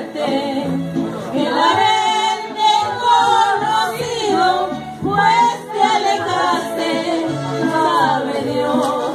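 Women singing a song together, holding long, wavering notes with short breaks between phrases.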